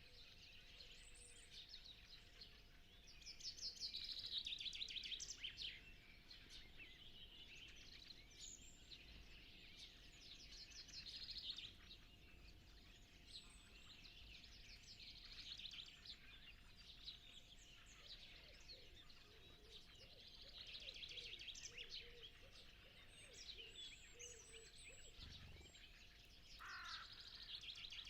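Dawn chorus of songbirds at a farm. One bird repeats a short song of rapid notes that run downward in pitch every several seconds, while other birds call and chirp more faintly.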